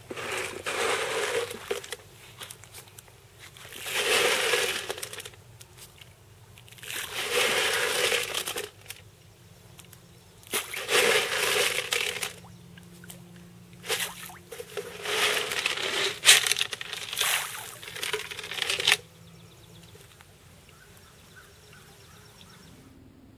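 Channel catfish splashing and slurping at the pond surface as they take floating feed, in repeated bursts of a second or two, a few seconds apart, dying down near the end.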